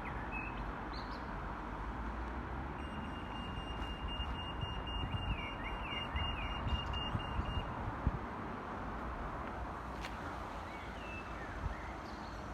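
Toucan crossing's audible signal beeping, a high electronic tone lasting about five seconds from about three seconds in, which tells pedestrians it is safe to cross. Steady wind and traffic noise runs underneath, with a few faint bird chirps.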